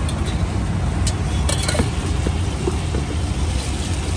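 Roadside traffic noise: a steady low rumble with a few short, sharp clinks about a second in.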